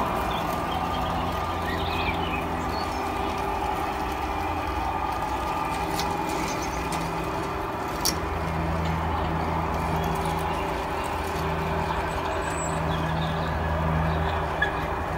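A G-scale model diesel train running, with a steady low engine drone that swells and eases, and a couple of sharp clicks from the wheels on the track.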